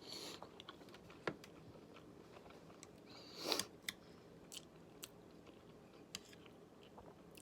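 A person chewing sashimi close to the microphone: faint wet mouth clicks and smacks, with one louder, longer noisy sound about three and a half seconds in.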